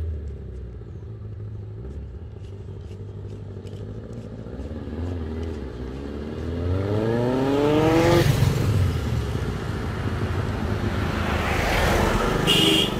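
Road traffic passing close by. About six seconds in, an engine accelerates, its pitch climbing steadily for two seconds before cutting off sharply. A pickup truck then goes past, and a short horn toot sounds at the very end.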